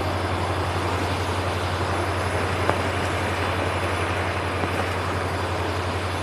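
Steady rushing noise over a constant low hum, with a single faint click about two and a half seconds in.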